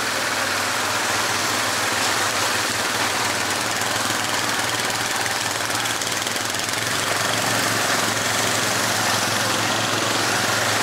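Yamaha Grizzly 450 ATV engine running steadily under a constant rushing hiss.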